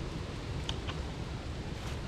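Wind rumbling on the microphone over a steady hiss of rain, with a few faint ticks.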